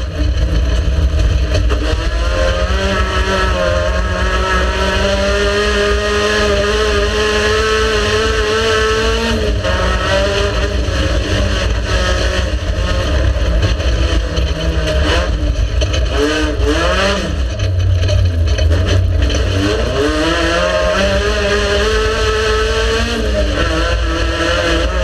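Race car engine running hard, its pitch climbing, dropping sharply about a third of the way in, then falling and rising several times past the middle before climbing again, as it shifts gear and slows for corners. A deep rumble sits under it throughout.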